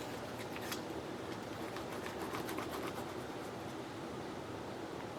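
Faint rustles and light taps of paper craft materials being handled, over a steady background hum.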